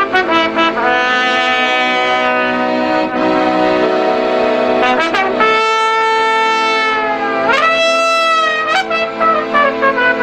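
Trumpet playing a folk melody over a sustained accordion accompaniment. About five and a half seconds in it holds a long note, then slides quickly upward to a high held note before returning to the tune.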